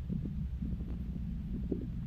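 Steady low rumble with faint irregular soft knocks: muffled noise on a poor microphone recording.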